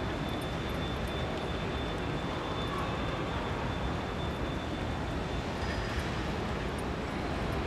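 Steady low hum of a large airport terminal hall, from its ventilation and distant crowd, with a faint high whine that drops out near the end.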